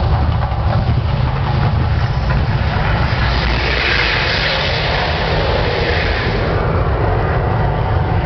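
Mirage volcano show erupting: a deep, steady rumble with a rushing hiss of its fire jets that swells from about three seconds in and fades after six.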